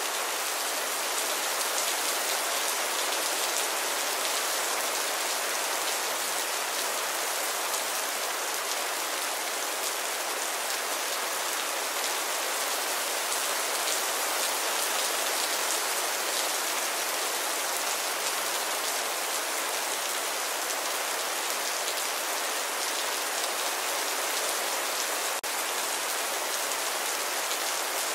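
Steady rain falling, a dense even hiss, with one momentary dip in level near the end.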